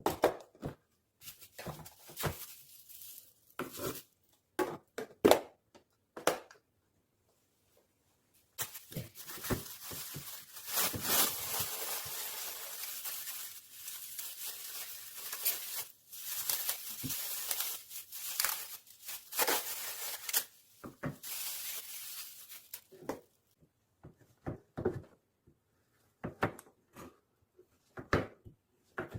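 Kitchen handling noises: a long stretch of plastic packaging rustling and tearing, with scattered knocks and clicks of containers before and after it.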